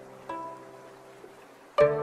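Background music of plucked string notes: a soft note shortly after the start and a louder one near the end, each ringing and fading away.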